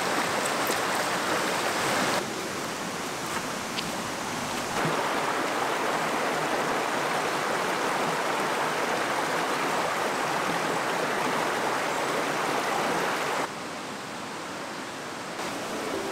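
Rushing water of a shallow, rocky woodland stream: a steady hiss that drops and rises in level abruptly a few times.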